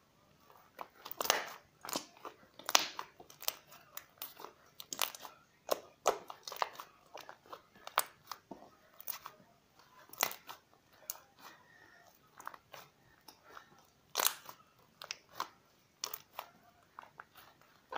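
Crunchy slime with beads mixed in, being squeezed and worked by hand, giving irregular crackles and sharp pops, a few a second.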